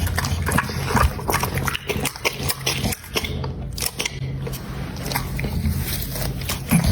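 An American Pocket Bully dog eating, chewing and biting through meat with many sharp, irregular crunches, over a low steady drone. The crunching eases off briefly about three seconds in.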